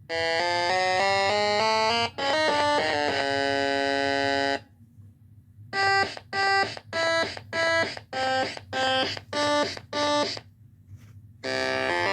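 Electronic background music: a short stepping tune and a held chord, a brief pause, then a run of about eight short, clipped chords, and sustained notes again near the end.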